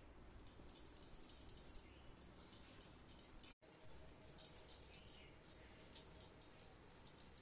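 Quiet, short scraping strokes of a knife blade peeling a potato, repeating unevenly, with a brief silent gap about three and a half seconds in.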